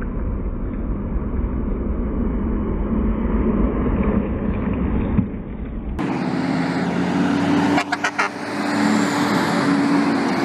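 Highway traffic passing close by, a steady wash of tyre and engine noise. About six seconds in it cuts to a dump truck's diesel engine running close by with a steady low hum, with a few sharp knocks about two seconds later.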